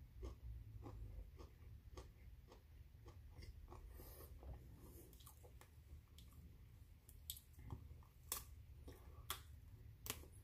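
Quiet crunching and chewing of broccoli florets as they are bitten off and eaten, in a string of short crunches, a few sharper ones in the second half, over a low steady hum.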